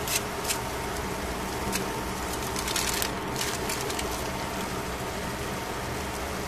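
Fish pieces sizzling on foil in a pan: a steady hiss with a few sharp pops and crackles, most of them together about two and a half to three seconds in.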